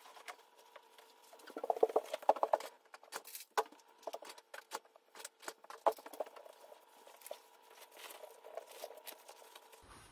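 Light, irregular clicking and tapping, busiest from about one and a half to two and a half seconds in: a Boston terrier's claws on a wooden floor and bags being set down and handled on a rug.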